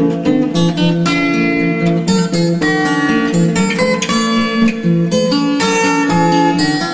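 Background music: a gentle instrumental tune of plucked acoustic guitar notes and strummed chords playing steadily.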